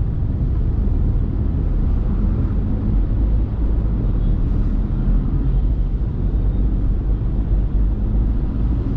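Steady low rumble of a car driving, heard from inside the cabin: engine and tyre noise with no sudden events.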